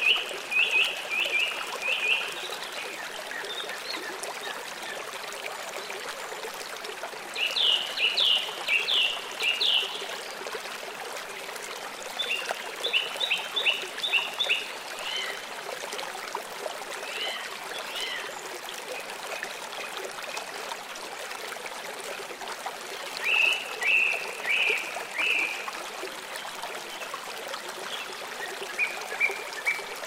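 Recorded nature ambience: a steady stream of running water, with a songbird singing short phrases of quick chirped notes, about six times, every few seconds.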